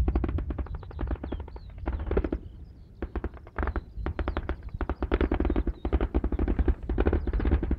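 Machine-gun fire: several rapid bursts of shots with short gaps between them, the longest burst in the second half.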